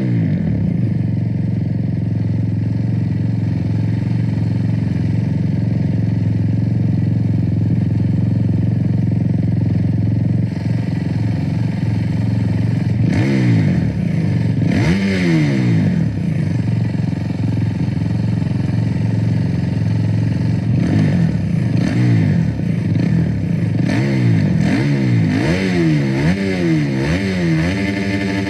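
A Kawasaki KX450 supermoto's single-cylinder four-stroke engine idling steadily, then revved with short throttle blips: two about halfway through, and more, closer together, near the end.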